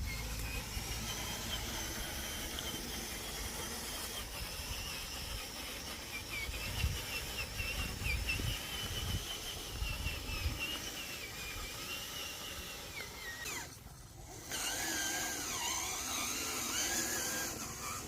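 Small electric motors and gearboxes of radio-controlled model construction trucks whining, the pitch wavering up and down with the throttle. The sound drops out briefly about three-quarters of the way through, then comes back lower and swinging more in pitch.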